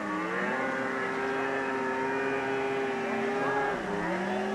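Snowmobile engine running at steady high revs as the sled ploughs through deep powder; about four seconds in the revs drop briefly and then climb back.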